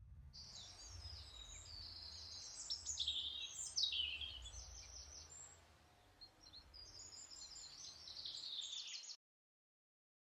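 Small birds singing and chirping, several overlapping songs of quick warbles and a few falling notes, over a low rumble. The sound cuts off suddenly about nine seconds in.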